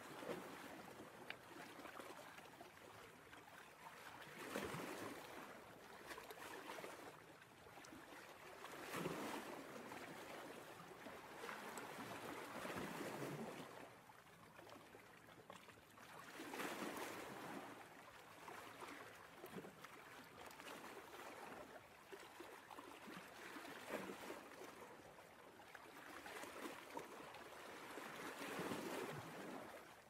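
Faint ocean surf, waves washing in with a swell of rushing water every four to five seconds.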